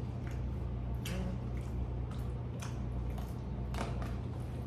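A person eating a rice-and-meat burrito bowl: wet chewing and mouth sounds with a few short sharp clicks, over a steady low hum.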